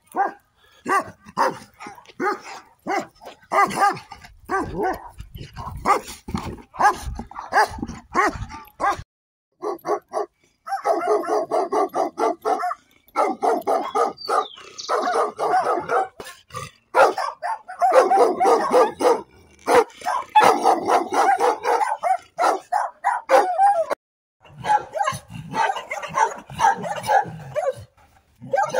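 Several dogs barking fiercely, one after another. At first there are quick single barks, then long runs of barking with hardly a pause.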